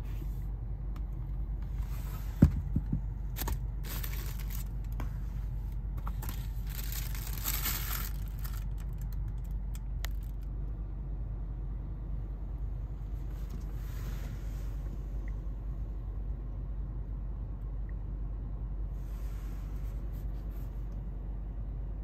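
Cardboard shoe box being opened and sneakers handled: rustling and scraping of cardboard and paper, mostly in the first ten seconds with softer rustles later, and a sharp knock about two seconds in. Under it, a steady low rumble inside a car.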